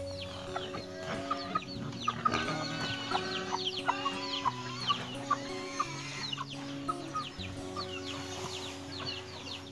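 Chickens clucking, with many short falling chirps, over background music of slow held notes.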